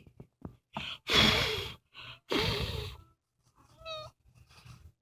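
A very young kitten, just woken, mewing: two breathy, wavering cries, then a shorter, clearer mew near the end.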